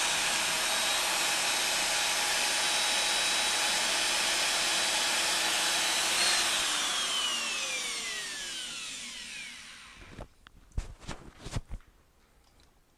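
Power tool fitted with a brass wire brush running steadily, then switched off about six seconds in and winding down over several seconds with a falling whine. A few short knocks follow near the end.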